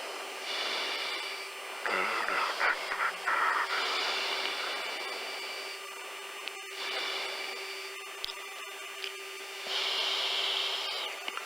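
Steady jet cockpit hiss and hum over the intercom, with the pilot's breaths through the oxygen mask coming about every three seconds.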